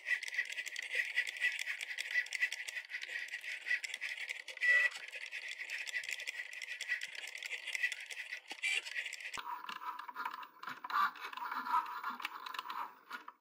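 Cricut Joy cutting machine cutting vinyl: its small motors whir and buzz with fast clicking as the blade carriage and mat shuttle back and forth. About nine seconds in, the motor sound shifts abruptly lower.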